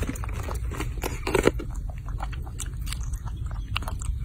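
A baby monkey biting and chewing fresh strawberries: irregular wet, crunchy bites and mouth sounds, the loudest about a second and a half in, over a steady low rumble.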